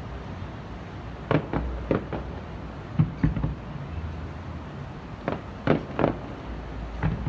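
Fireworks shells bursting: a string of about a dozen sharp bangs at irregular intervals, in small clusters.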